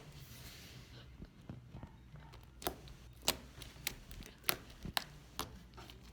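Slime being squished and stretched in the hands, giving about ten small, sharp pops and clicks at uneven intervals.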